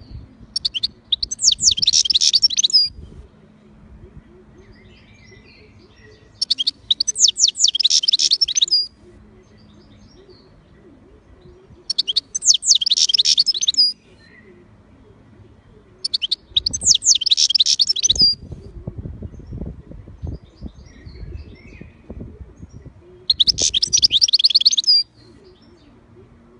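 European goldfinch singing: five bursts of rapid twittering song, each about two seconds long, with pauses of several seconds between them.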